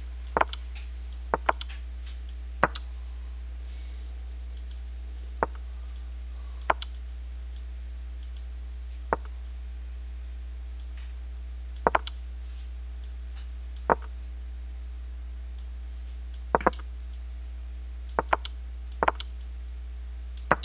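Computer mouse clicking as chess moves are entered: about a dozen short, sharp clicks at irregular intervals, several in quick pairs, over a steady low hum.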